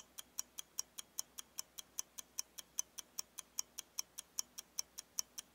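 Clock-ticking sound effect: faint, quick, even ticks at about five a second, marking the thinking time for a quiz question.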